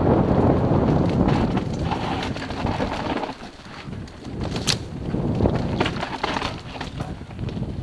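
Mountain bike running fast down a dirt forest trail: wind buffeting the microphone, with the rattle, clicks and knocks of the bike over the rough ground and one sharp click a little after the middle. The wind rumble eases briefly about halfway through.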